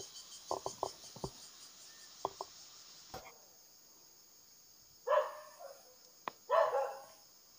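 Steady high-pitched insect chorus, with a dog barking twice, about five and six and a half seconds in.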